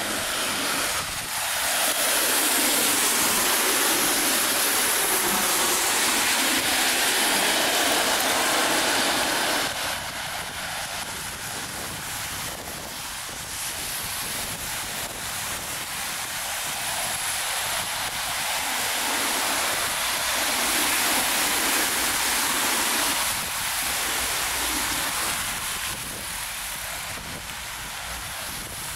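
Traffic on a wet city road: the hiss of tyres on rain-soaked tarmac, swelling as vehicles pass for the first ten seconds or so and again a little past halfway.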